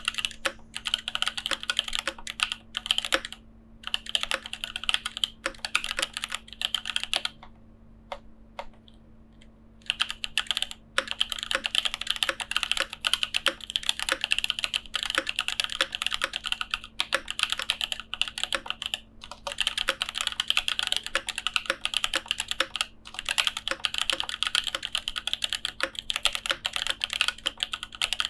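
Continuous fast typing on a custom Ark 87 mechanical keyboard with lubed and filmed EV-01 switches, Equaz-tuned stabilizers and Aifei Mecha XO keycaps: a dense run of keystroke clacks. About a quarter of the way in the typing stops for roughly two and a half seconds, and there are a few shorter breaks.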